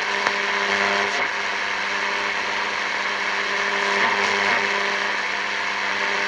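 Grundig Ocean Boy 210 radio's loudspeaker giving steady static hiss with a low buzz, tuned between stations during a band scan.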